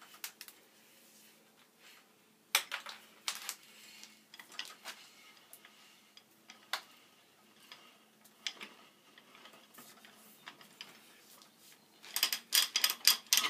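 Ridgid 00-R ratcheting hand pipe threader being backed off a freshly threaded black iron pipe: scattered metal clicks and clanks from the ratchet and handle, with a quick run of clicks near the end.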